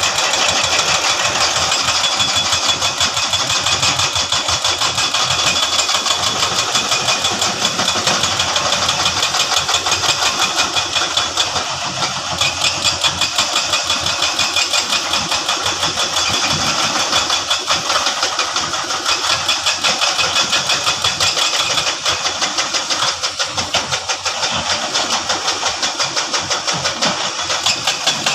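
Engine of a piece of construction machinery running steadily, with a rapid, even pulsing throughout.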